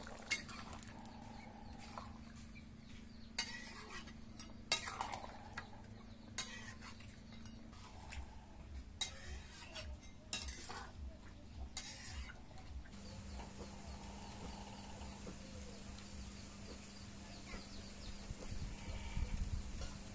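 A utensil clinking and scraping in a kadai as fried fish is stirred into a vegetable curry, in scattered knocks, with chickens clucking in the background.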